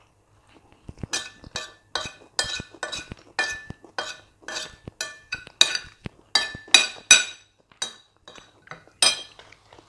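Metal cutlery clinking and scraping against a plate in a quick run of ringing strikes, about two a second, as food is scooped up to eat. It thins out after about seven seconds, with one more clear clink near the end.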